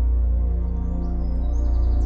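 Slow ambient new-age music: a deep sustained drone under held pad tones. Short high bird chirps and trills come in about halfway through.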